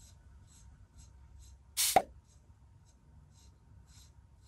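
Rhythmic brushing strokes through a black Shiba Inu's coat, about two a second, during grooming. About two seconds in, a short loud pop with a falling pitch stands out above the strokes.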